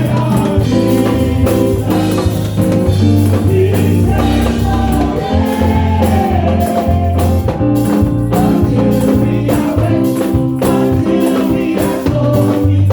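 Gospel praise music: singing over a held bass line, with a tambourine shaking along.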